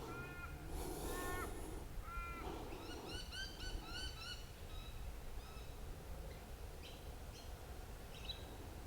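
Wild birds calling: a few short harsh arched calls in the first two and a half seconds, then a quick run of chirping notes around three to four seconds in, then fainter scattered chirps.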